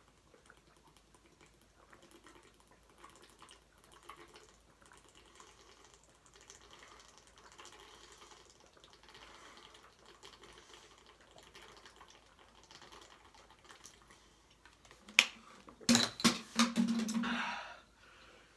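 Man gulping a drink from a plastic bottle, faint swallowing and small liquid clicks for about fifteen seconds, then a loud spluttering outburst from the throat near the end.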